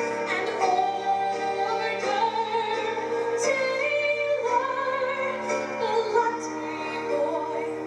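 A woman singing solo into a microphone over musical accompaniment, holding a few long notes in the middle.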